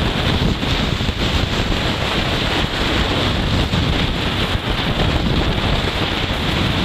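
Steady wind rush buffeting the microphone of a Honda CG 160 Fan motorcycle cruising at about 85 km/h, with the bike's engine and road noise underneath.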